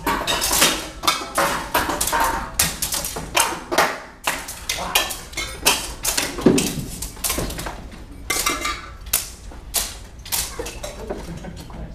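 Steel cut-and-thrust swords clashing and striking shields and armour in a fast, irregular run of sharp metallic clanks.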